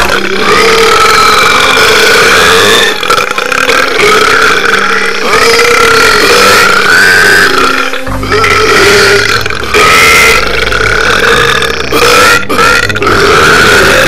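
A person belching a run of long, loud, drawn-out burps one after another, each lasting two to three seconds, with a wavering pitch.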